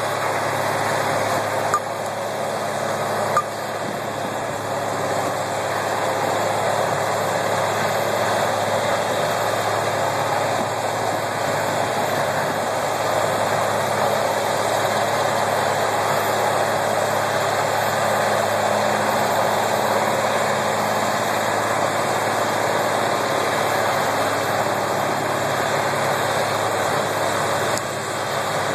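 Vermeer chipper's heavy diesel engine running steadily under load as it chips brush fed by a John Deere 120 excavator, whose engine is mixed in. Two sharp cracks sound about two and three and a half seconds in.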